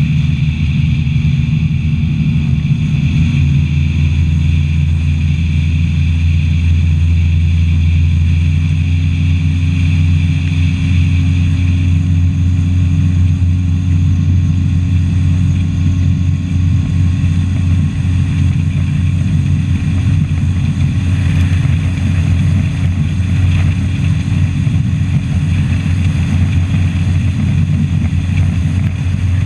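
Bass boat's outboard motor running steadily at speed, a loud low drone that shifts pitch slightly about three seconds in and then holds, with wind and water rushing past the hull.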